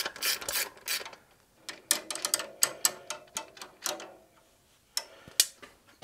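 Hand ratchet wrench clicking as it undoes the 12 mm bolt on a motorcycle exhaust silencer mount. There are a few quick strokes in the first second, then a run of lighter, faster ticks, and two sharp clicks about five seconds in.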